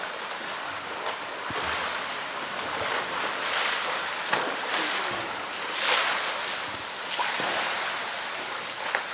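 Water splashing and sloshing as a polar bear wrestles a floating blue plastic drum in a pool, with a few louder splashes, over a steady high hiss.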